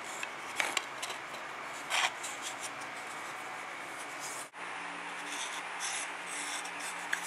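Thin wooden strips handled and rubbed together in the fingers, giving a few short scrapes and clicks over a steady hiss. After a cut about four and a half seconds in, a faint steady hum sits under light scraping clicks as a dial caliper is worked against a strip.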